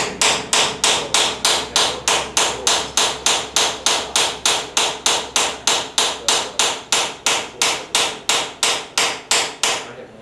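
Hand hammer striking thin steel stock clamped in a blacksmith's leg vise, working it cold to cut it. The blows come in a steady rhythm, about three a second, each with a sharp metallic ring, and stop near the end.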